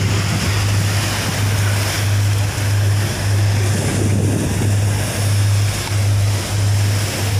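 Engine of the passenger ship KM Sabuk Nusantara running under way: a steady low drone with a slow, regular throb. Over it is an even hiss of water rushing past the hull and wind on the microphone.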